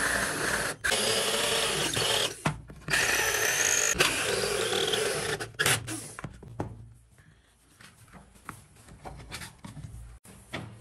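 Cordless drill spinning a hole saw through a wooden board, a steady cutting whine with two brief breaks, stopping about six seconds in. Faint clicks and knocks follow.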